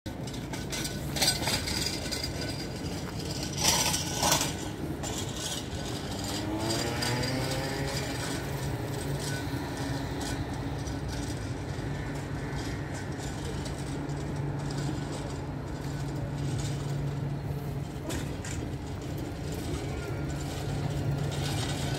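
Electric tram starting off, its traction motors giving a rising whine a few seconds in, then running on with a steady low hum. A few sharp knocks come early.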